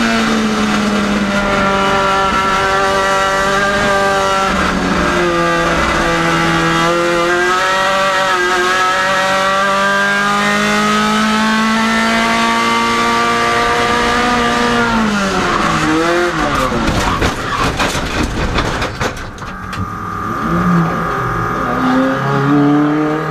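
In-car sound of a Procar 2000 race car's engine pulling at high revs, dipping and climbing again a few times. About 15 s in the revs fall away sharply and there are several seconds of tyre skidding with a series of bangs as the car crashes. The engine then runs low and revs up again near the end.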